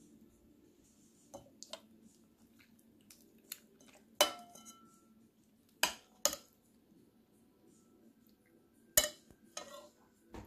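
Metal spoon clinking against a ceramic bowl while eating poached eggs: about eight separate sharp clinks, the loudest about four seconds in, with a brief ring, and again near nine seconds.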